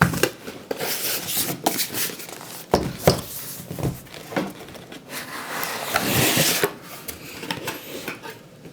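Packaging and accessories being handled and moved in a cardboard box: irregular knocks and clicks, with a louder stretch of rubbing about six seconds in.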